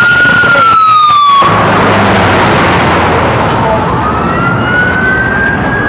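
Emergency vehicle sirens wailing: one slowly falling tone that breaks off about a second and a half in, then a steady rush of noise, with a second wail rising again near the end.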